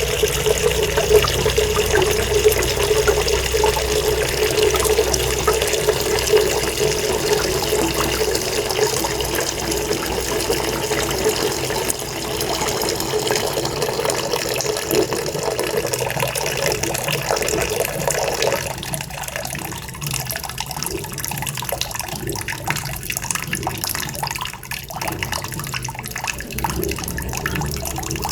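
Tap water running into a sink in a steady rushing stream. About two-thirds of the way through the sound changes, losing its lower note and turning thinner and more uneven.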